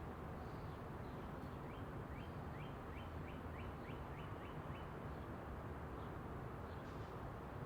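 Outdoor ambience: a steady low background rush, with a small bird giving a quick run of about ten rising chirps, roughly three a second, starting about two seconds in and stopping near the middle.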